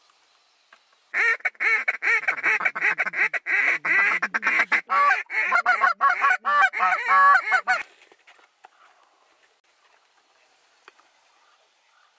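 Hunter blowing a duck call at a circling flock of mallards: a long, loud run of rapid quacking notes lasting about six and a half seconds, the notes dropping lower near the end.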